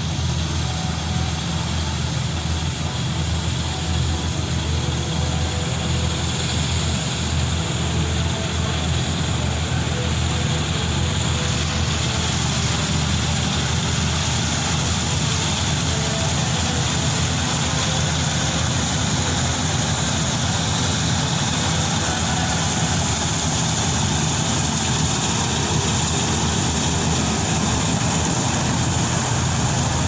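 Kartar 4000 combine harvester's diesel engine running steadily under load as it cuts and threshes wheat. A low, even engine drone sits under a steady high rushing hiss from the machine's threshing and cleaning works.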